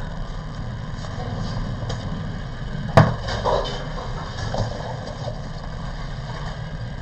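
A steady low rumble of room noise, with a sharp knock about three seconds in and a few softer clatters after it, like things being handled on a desk while someone shifts in their seat.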